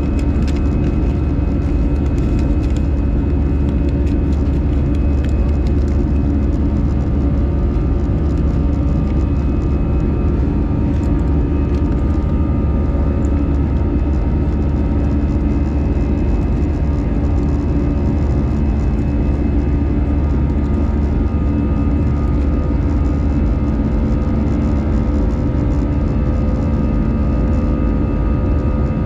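Airbus A319 cabin noise during the climb after take-off: a steady, loud rumble of the turbofan engines and rushing air, with several steady whining tones from the engines riding on top.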